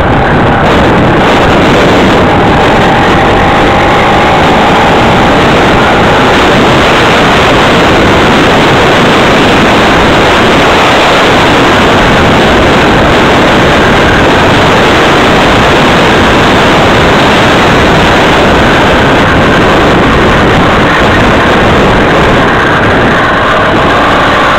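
Loud, unbroken wind rushing over the microphone of a camera on a moving bicycle.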